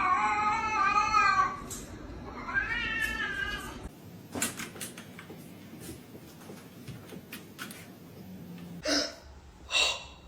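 A cat meowing: two long, wavering meows in the first four seconds, then quieter light taps and a couple of short calls near the end.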